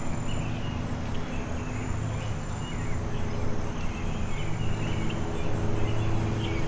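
Outdoor ambience: a steady low rumble with birds chirping now and then.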